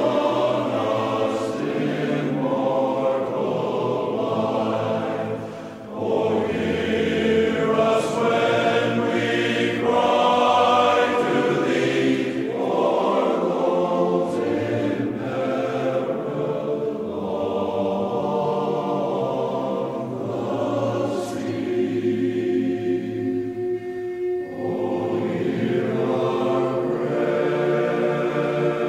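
Slow choral music: a choir singing long, sustained phrases.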